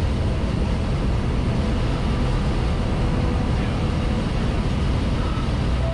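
Steady cockpit drone of a single-engine light aircraft's engine and propeller, with rushing air noise, on approach to land.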